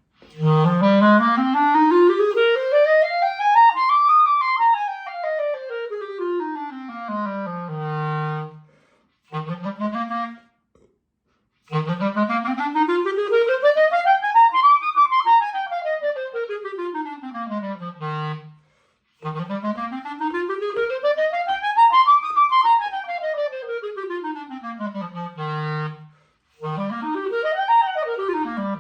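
Backun Alpha student clarinet (synthetic body, cocobolo barrel and bell) playing an F major scale up about three octaves and back down, three times over, each run ending on a held low note. There is a short phrase after the first run and a quicker up-and-down run near the end.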